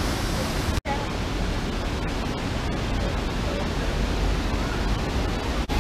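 Steady rush of a gorge creek tumbling over small cascades, an even roar of white water. It drops out for an instant about a second in and again near the end.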